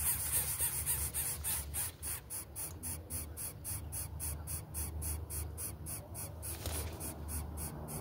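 Greater coucal nestlings begging with a rapid run of raspy calls, about four a second, that fade near the end. A steady low hum runs underneath.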